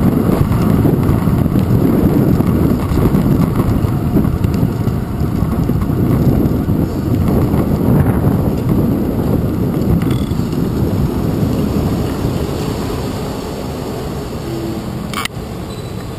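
Wind rushing over a handlebar-mounted action camera, with the rolling rumble of a bicycle riding along a city street. The noise eases off near the end as the bike slows, and one sharp click comes shortly before the end.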